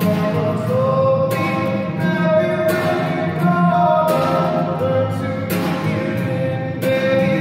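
A man singing a slow melody while strumming an acoustic guitar, the strums falling about every second and a half.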